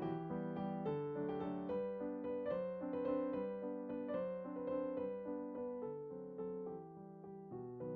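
Background piano music: a melody of held notes changing at an even pace.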